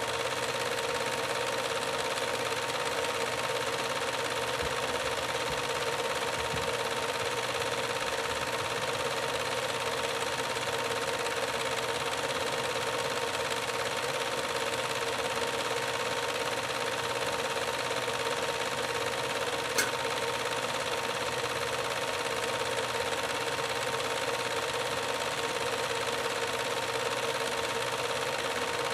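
Steady mechanical whirring of a home-movie film projector running, with a constant thin hum over it and one short click about two-thirds of the way through.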